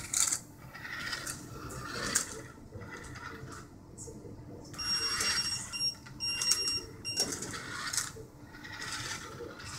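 A small electronic beeper sounding a few short high beeps about halfway through, over handling and rustling noise.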